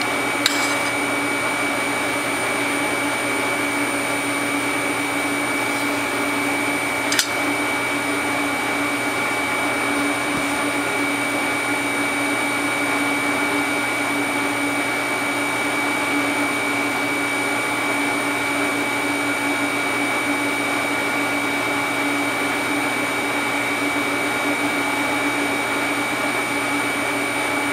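TIG welder running: a steady whirring hum with a faint high whine on top, and a single click about seven seconds in.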